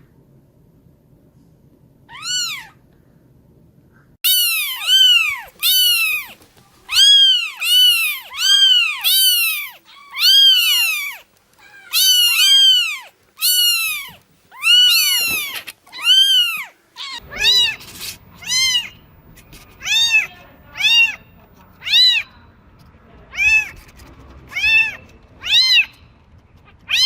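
Newborn kittens meowing over and over, high thin cries that rise and fall in pitch, about one a second. They are loudest through the first half; after about halfway the calls come a little softer over a faint low hum.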